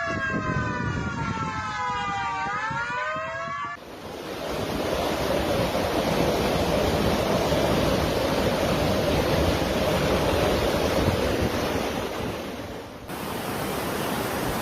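Hurricane winds: a loud, dense rush of storm noise, opening with a wailing tone that falls and then rises. The sound changes abruptly twice, about four seconds in and near the end, as separate recordings are cut together.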